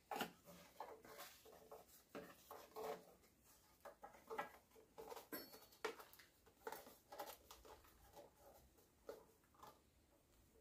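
Faint rustles and soft taps of a cardboard template being handled and pressed against a car's sheet-metal body panel, scattered and irregular.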